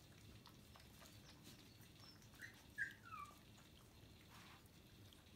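Puppy giving three short, high whimpering squeaks about halfway through, the last sliding down in pitch; otherwise near silence.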